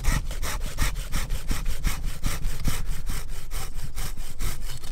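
Hand pull saw cutting through a ficus trunk in quick, even strokes, nearing the end of the cut.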